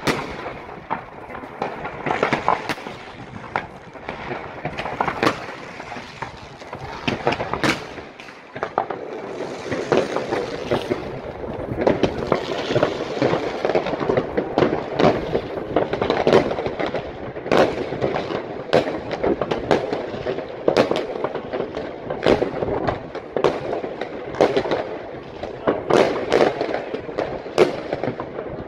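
New Year's fireworks and firecrackers going off all over a town: a continuous din of crackling and popping, broken by frequent sharp bangs. There is a stretch of hissing about ten seconds in.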